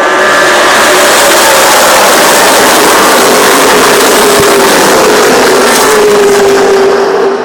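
Race trucks' engines passing at speed, a loud, steady roar with an engine note that slowly falls in pitch, easing off near the end.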